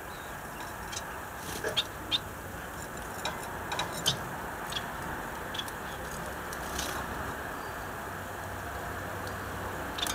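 Caged finches giving a scatter of short, high chirps and clicks, about a dozen in all, most of them between one and five seconds in, over a steady background hiss.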